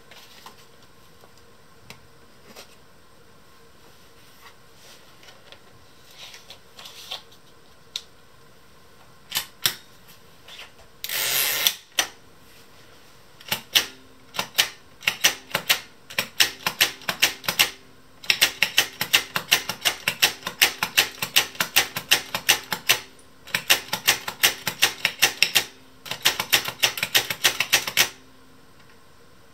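Manual punched-card key punch being operated. After a few seconds of near quiet there is a short rustle about eleven seconds in as a card goes into the machine. Then the numeric keys are struck in quick runs of sharp mechanical clacks, each stroke punching a hole and stepping the card along.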